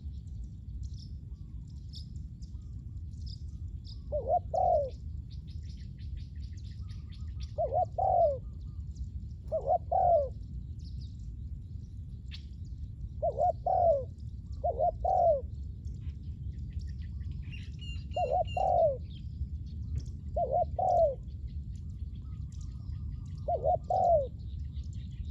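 Spotted dove cooing: short phrases of one or two low coos every two to four seconds, about eight times. Faint chirps of small birds and a steady low rumble lie underneath.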